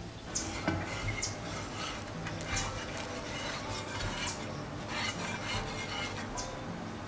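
Spatula scraping across a flat metal griddle as a thin, crisp sheet of rukhal bread is worked loose and lifted off, a string of irregular scrapes and scratches.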